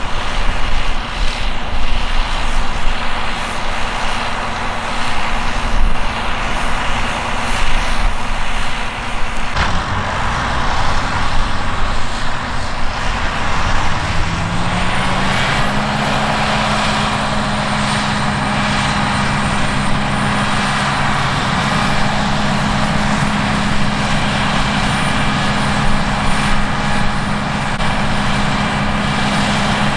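Large diesel farm machines running at harvest: irregular rattling and knocking over engine noise at first, then after an abrupt change an engine rises in pitch about fourteen seconds in and runs steadily at the higher speed, with a faint high whine.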